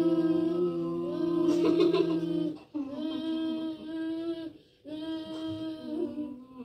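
Children humming through Bhramari pranayama (humming-bee breath), fingers in their ears: long steady hums of about two seconds each, broken by short pauses for an in-breath. Two voices at different pitches hum together in the first hum.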